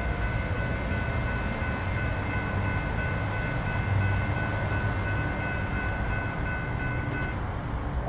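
Railroad crossing warning bell ringing steadily as the gates lift after a train has passed, cutting off about seven seconds in. Under it is a continuous low rumble of rail and road traffic.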